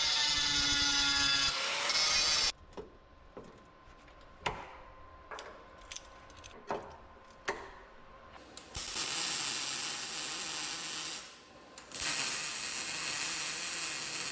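Auto body repair tool work. A power tool runs for about two and a half seconds, then come a few separate clicks and knocks of hand work, and from about nine seconds in a power tool runs steadily again, with a short break near the eleven-second mark.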